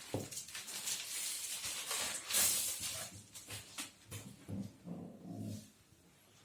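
A dog sniffing and snuffling with irregular breathy rustling, then a few short low vocal sounds between about four and five and a half seconds in.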